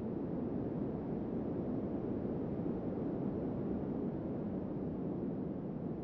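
Wind blowing steadily, a low, dull rush of noise with little high end and no distinct gusts.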